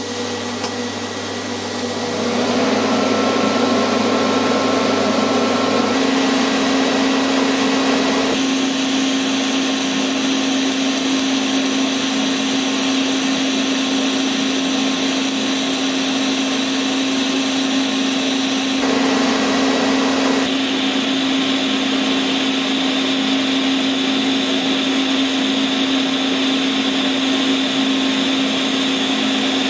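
TIG welding arc on a steel square-tube joint from an R-Tech TIG welder, a steady hiss and buzz with a steady hum under it. The tone shifts a few times as the arc current is changed on the foot pedal.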